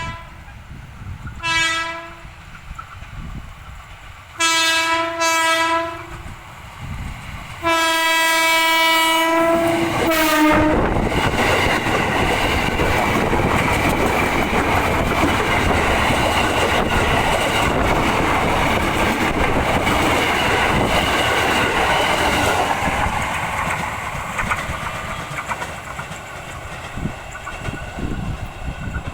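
KRL Commuter Line electric train's horn sounding a short blast, then two quick blasts, then one long blast, as a greeting from the driver. The train then runs past loudly for about twelve seconds, its wheels clattering on the rails, and fades away over the last few seconds.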